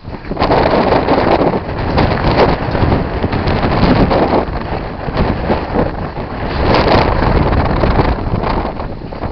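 Wind buffeting the camera microphone, a loud rushing rumble that swells and eases in gusts.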